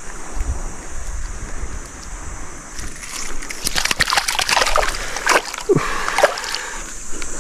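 Water splashing and sloshing as a small grouper is dropped back into shallow seawater and thrashes away. It is a quick run of splashes starting about three seconds in.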